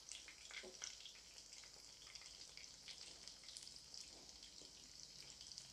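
Marinated chicken pieces shallow-frying in hot coconut oil on a low flame: a faint, steady sizzle with scattered small crackles.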